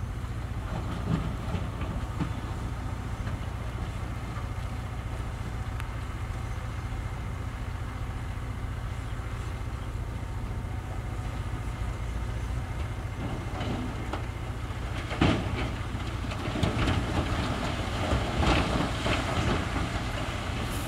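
Heavy diesel machinery engine running steadily. About fifteen seconds in there is a sharp knock, then several seconds of rocks clattering and tumbling.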